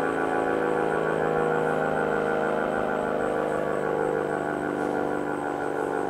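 ACA Cyclone 120 omnidirectional, naturally aspirated storm siren sounding a loud, steady tone with many overtones during a test.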